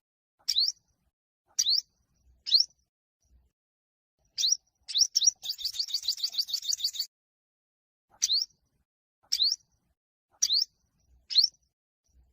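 Yellow-bellied sunbird singing: sharp, high chirps about once a second, with a fast rattling trill of repeated notes lasting about a second and a half in the middle.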